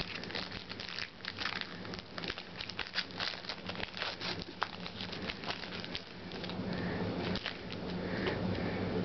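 Trading cards being handled and flipped through by hand, the stack tapped against a wooden tabletop: a quick run of card flicks and light taps that thins out after about six seconds.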